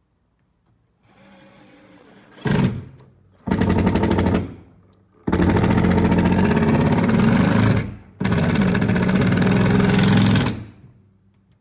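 Power driver, most likely an impact driver, driving plaster screws through a metal install strip into a plaster wall. There is a quiet run first, then four loud bursts of rapid hammering, the last two about two and a half seconds each.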